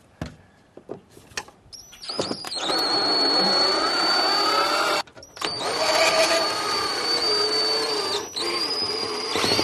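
Power drill backing out the screws of an old storm door's hardware. It runs in three long spells, the motor's whine wavering in pitch as the trigger is eased, with a few light clicks before it starts.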